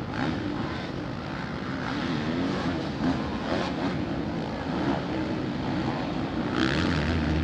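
Several motocross bikes' engines revving up and down as they race around a dirt track, the pitch rising and falling with throttle and gear changes; one bike gets louder near the end as it passes closer.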